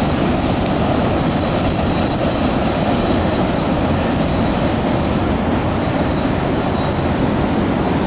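Freight train's cars rolling past at a distance, a steady rumble of wheels on rail with a faint high squeal running through it.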